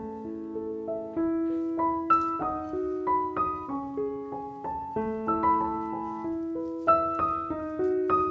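Background piano music: a gentle melody of single notes over held chords.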